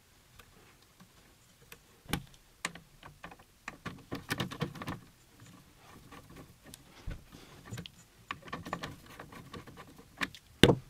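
Scattered clicks, taps and knocks of a screwdriver and hands working on a CNC machine's aluminium carriage, undoing the screws that hold the Acme nut blocks to the back plate. The clicks come in flurries, and there is a sharp knock near the end.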